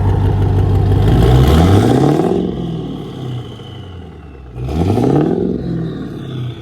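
Built 6.0 Powerstroke V8 turbo-diesel with a large S400-series turbo revved twice from idle and let fall back. After each rev a high turbo whistle slides down.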